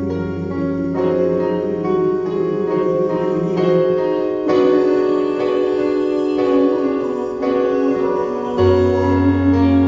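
Instrumental keyboard music, slow held chords changing every second or two, with a low bass note that drops out near the start and comes back near the end.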